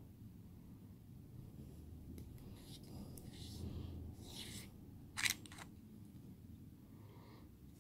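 Small stainless-steel parts of a rebuildable tank atomizer being handled and twisted together and apart: light metallic scraping and rubbing of the parts, with one sharp metal click a little past the middle.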